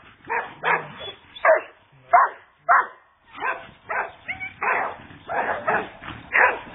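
A young Australian shepherd barking over and over in short, sharp barks, about two a second, with a brief pause around three seconds in.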